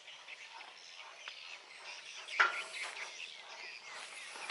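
Faint outdoor background, then one sharp metallic clank about two seconds in, with a short ring after it, as workers use a steel bar to take apart an excavator's hydraulic bucket cylinder.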